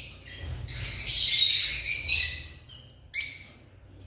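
Lovebirds calling: a run of high-pitched chirps for the first couple of seconds, then two short calls near the end.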